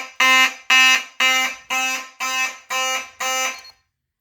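Fire alarm horn sounding in evenly spaced blasts, about two a second, set off by a heat detector under test; it cuts off near the end.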